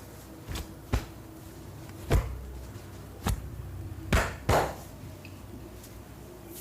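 Hand slaps of a percussive head and upper-body massage: about six sharp, irregularly spaced strikes, the last two coming close together.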